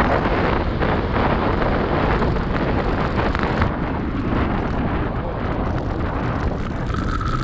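Wind rushing over the microphone of a camera on a moving electric scooter, a steady dense rush. A faint steady high tone comes in near the end.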